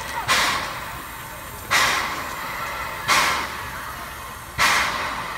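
Small steam switcher locomotive moving off slowly, its exhaust giving four sharp chuffs of steam about a second and a half apart, each fading quickly.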